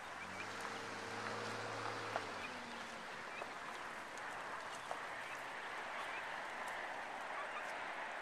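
A flock of helmeted guinea fowl calling, with scattered short chirps and harsh chatter. A low steady hum, such as a passing engine makes, fades out about two and a half seconds in.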